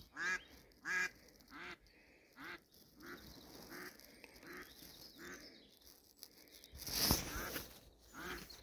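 A live decoy duck quacking a long series of short quacks, about two a second, loudest at the start and fading away; a new series begins near the end. About seven seconds in there is a brief loud rustling burst.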